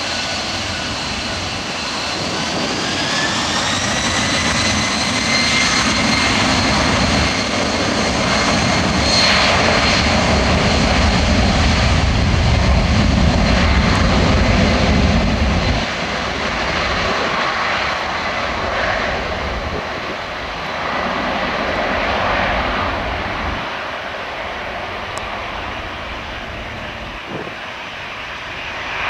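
Boeing 767-200ER's two turbofan engines spooling up to takeoff power: a rising whine over the first few seconds that settles into a steady high whine. A heavy rumble follows as the jet begins its takeoff roll, then drops off about halfway through and fades as the aircraft moves away down the runway.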